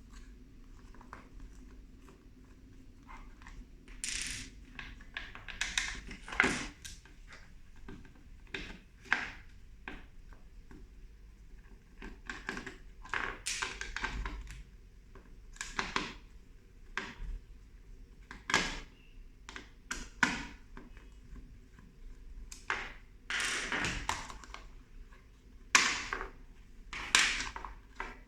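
Irregular plastic clicks, knocks and short scrapes of a cordless stick vacuum and its charging base being handled, about one every second or two.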